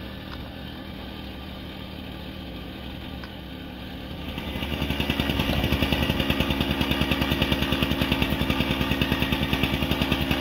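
A small petrol engine comes up about four seconds in and runs steadily with a rapid, even putter over a lower, steady hum.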